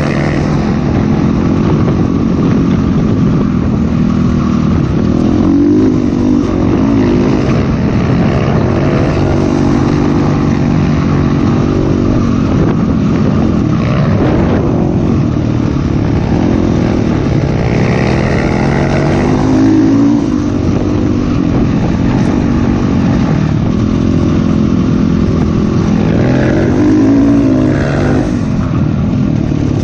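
Dirt bike engine running under load, revving up and falling back again and again as the rider works the throttle along a sandy trail, heard close up from the bike being ridden.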